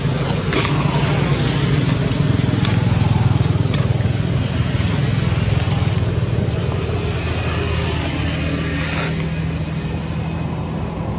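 A motor engine running steadily with an even low hum, a few sharp clicks over it.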